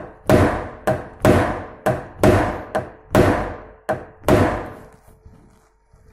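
Hard knocking blows on a kitchen cabinet, about nine in four and a half seconds, each ringing on briefly, then stopping.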